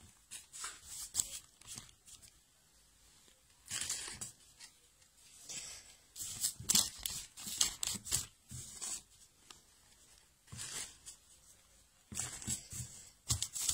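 A paper sheet on the table rustling and crinkling in short, irregular bursts as a strip of dough is rolled up on it by hand.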